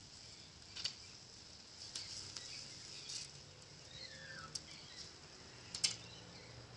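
Beef steak sizzling on a hot grilling stone over a wood fire: a steady high hiss broken by a handful of sharp pops. A bird gives one short falling call about four seconds in.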